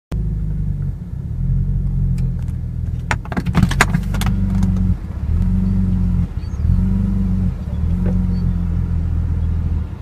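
Audi B5 S4's 2.7-litre twin-turbo V6 idling roughly: the idle rises and falls unevenly every second or so, the sporadic idle of a misfire on cylinder two. A quick run of sharp clicks and rattles comes about three to four seconds in.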